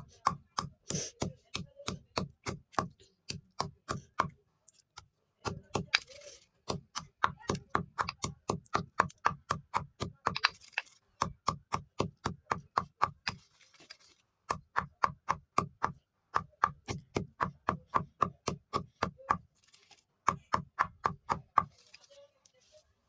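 Brittle chalky sticks being crushed: rapid, evenly spaced crunches about four a second, in runs of several seconds with short pauses between them.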